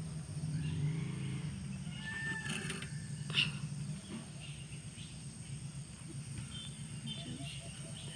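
A low, drawn-out animal call, strongest in the first two seconds and fading to a faint low rumble. Faint chirps sound above it, with one sharp click a little past three seconds.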